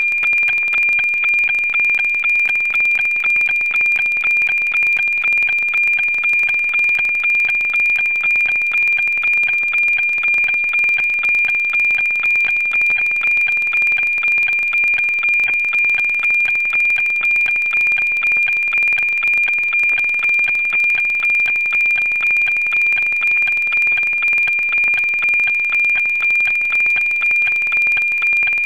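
NOAA 19 weather satellite's APT image signal, received on 137.1 MHz and demodulated by a software-defined radio: a steady high tone near 2.4 kHz with a regular rhythmic ticking beat from the image lines being sent.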